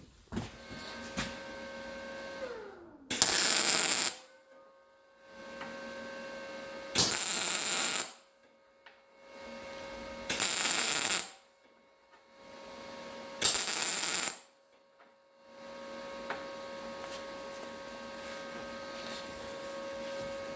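Four short bursts of arc welding, each about a second long and a few seconds apart, as a nut is welded on around its edge. A steady electrical hum carries on between the welds.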